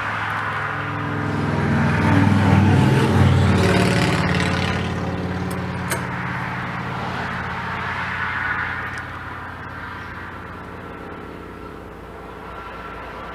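A motor vehicle going by: a low engine drone that swells two to three seconds in and then slowly fades away.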